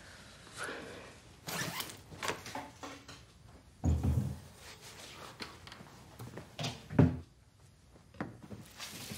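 Kitchen handling sounds: rustling and scraping, a few soft knocks, and two heavier thuds, the louder one about seven seconds in.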